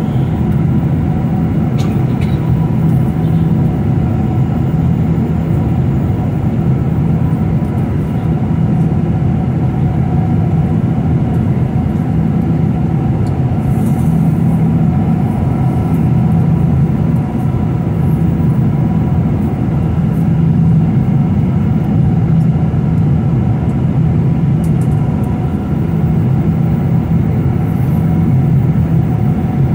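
Jet airliner cabin noise in cruise flight: a loud, steady, deep drone with a few faint steady tones above it.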